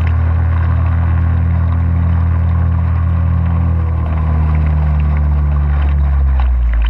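Yamaha 2 hp outboard motor running steadily and pushing a kayak along, with water rushing past the hull. Its note drops near the end.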